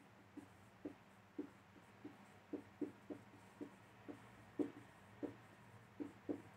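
Felt-tip marker writing on a whiteboard: a string of faint, short strokes, about two a second, as letters are drawn.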